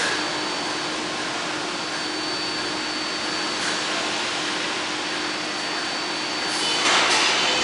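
R142A subway train standing at the platform, its ventilation and on-board equipment giving a steady hiss with a faint constant hum and a thin high whine. Near the end a louder rush of noise swells up as the train begins to pull out.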